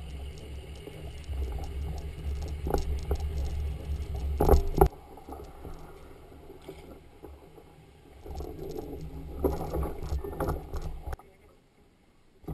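Fishing kayak being hauled over a concrete launch ramp and dock boards: a low rumble with scattered knocks, and loud clattering bangs about four and a half seconds in. The rumble dies away near the end as the kayak settles at the water.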